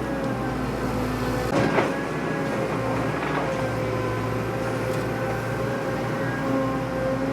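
Huina 1593 RC excavator's electric motors whining steadily as it works, with a brief clatter a little under two seconds in.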